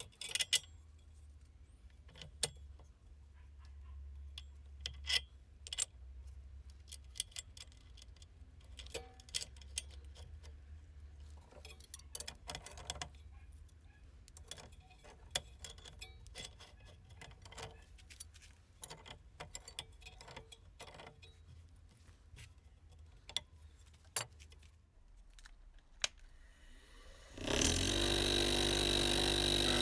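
Small metal parts clinking and tapping as they are handled, in scattered separate knocks. Near the end a power tool's motor spins up and runs loud and steady.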